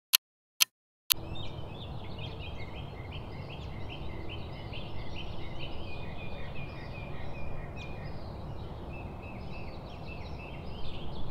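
A few sharp, evenly spaced ticks, about two a second, in the first second. From about a second in, a steady outdoor ambience follows, with birds chirping continuously over a low background rumble.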